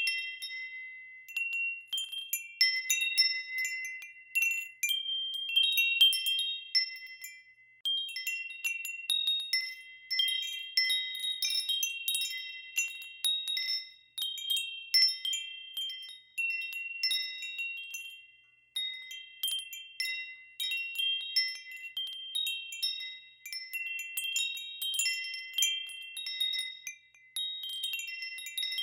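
Wind chimes ringing in irregular clusters of high, clear tones that overlap and fade, with a few short lulls where the ringing dies away before the next strikes.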